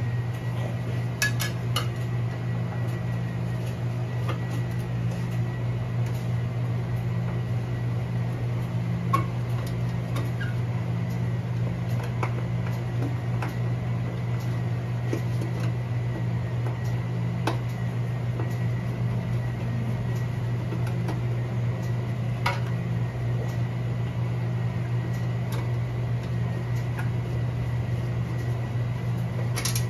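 Scattered light metallic clicks and clinks of espresso grinder parts and tools being handled during disassembly, over a steady low hum with a faint high whine.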